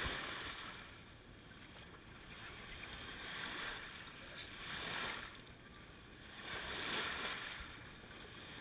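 Shallow surf washing up over sand and draining back, close to the microphone, swelling and fading about four times.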